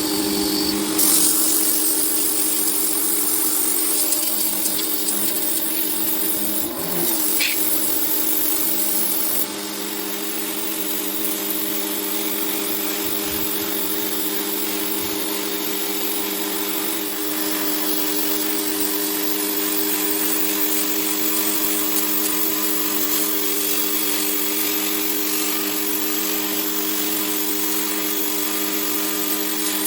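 Parkside PHD 110 G2 electric pressure washer running steadily, its motor and pump humming over a steady hiss.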